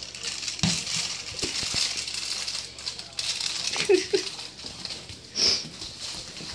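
Scattered light knocks and rattling clinks from a toddler handling a small hand-held toy while walking on a hardwood floor, with a short child's vocal sound about four seconds in.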